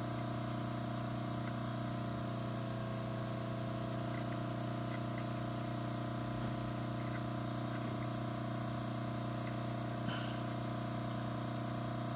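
Steady low electrical hum from the soldering bench equipment while a joint is heated, with a couple of faint small ticks.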